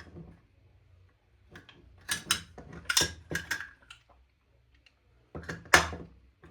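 Small airsoft rifle gearbox parts being handled by hand, clicking and clattering in two bursts: one about two seconds in and a shorter one near the end.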